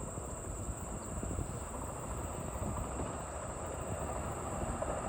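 Washington Metro train approaching across the lake, a steady low rumble of the train on its track, growing slightly louder toward the end.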